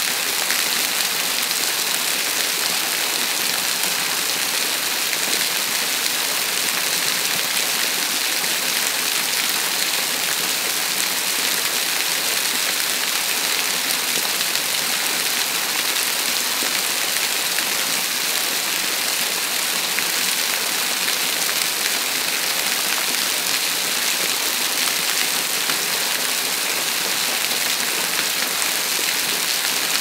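Grotto Falls waterfall pouring as a thin curtain of water onto wet rock and a shallow pool, a steady, even splashing hiss.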